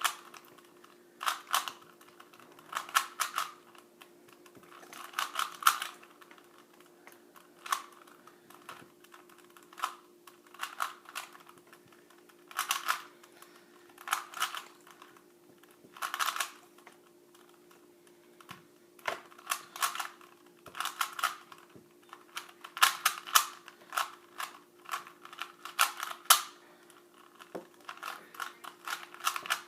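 A stock Rubik's brand 3x3 cube, not a speed cube, being turned by hand: quick runs of plastic clicking as the layers are twisted, coming in irregular bursts with short pauses between them. A faint steady hum lies underneath.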